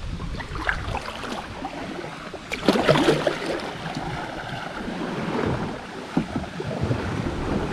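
Water splashing and rushing around a kayak on a fast, flood-high river, with wind buffeting the microphone. There is a louder splash about three seconds in.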